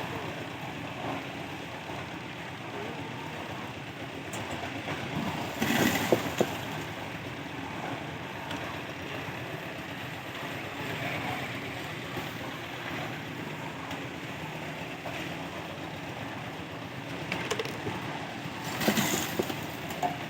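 Steady running of a site engine, with two louder, short scraping or clattering bursts: one about six seconds in, one near the end.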